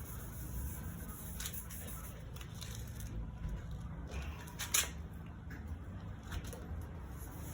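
Small handling sounds from applying headlight cleaning solution with a pad: scattered light clicks and rubbing, the sharpest about five seconds in, over a steady low rumble.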